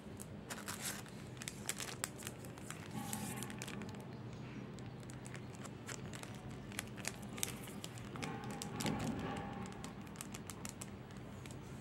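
Clear plastic packaging of a pack of page-marker sticky notes crinkling as it is handled, in irregular crackles and sharp clicks.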